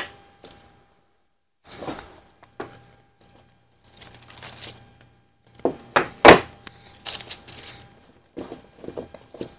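Wooden handscrew clamp being handled on a tabletop: a series of wooden knocks and clunks as it is set down and fitted around a sandwich, the loudest knock about six seconds in, with rustling between knocks and a sharp click at the very start.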